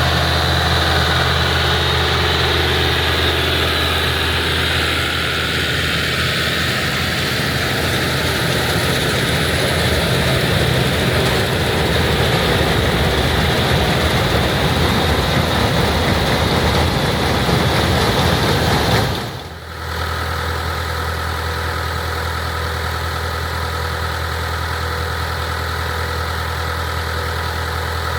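International Harvester 684 tractor engine running steadily while powering and pulling an IH 82 pull-type combine, a constant low drone with mechanical noise. There is a noisier, rougher stretch in the middle, a short break about two-thirds of the way through, then steady running again.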